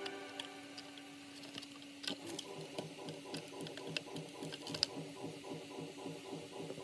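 3D printer running: a steady stepper-motor hum, then, about two seconds in, quick regular pulses and small clicks as the motors move the print head.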